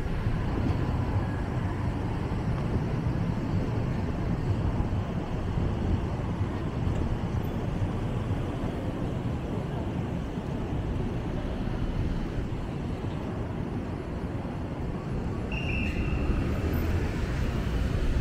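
Steady city street ambience: a low, even hum of road traffic. A short high tone sounds near the end.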